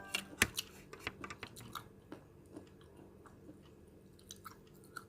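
Close-up chewing of fried noodles: soft, wet clicks and small crunches, frequent in the first couple of seconds and then sparse.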